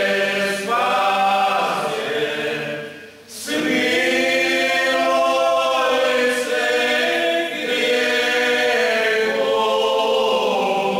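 Men's vocal group singing a Lenten church hymn a cappella, several voices holding long notes in close harmony. The singing breaks off briefly about three seconds in for a breath, then resumes.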